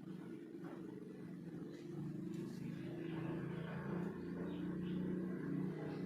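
A motor vehicle's engine running, a steady low hum that grows gradually louder.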